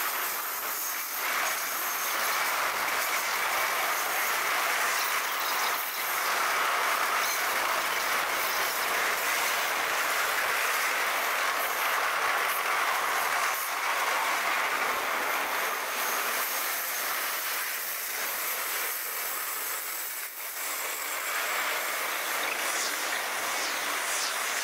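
Freight train cars rolling past on the rails, a steady wheel-on-rail noise with some wheel squeal.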